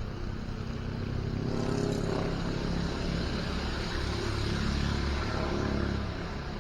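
A motorcycle engine running and revving, growing louder about a second in and easing off near the end.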